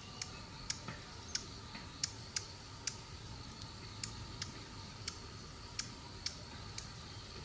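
Faint irregular sharp ticks, roughly two a second, over a faint steady high-pitched hum.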